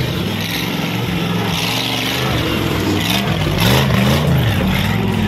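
Off-road 4x4's engine revving up and down several times, its pitch rising and falling as it works over rough dirt.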